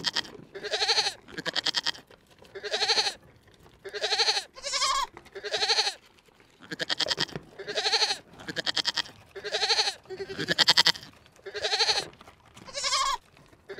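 An animal calling over and over, short wavering bleat-like cries about one a second, each with an arched rise and fall in pitch.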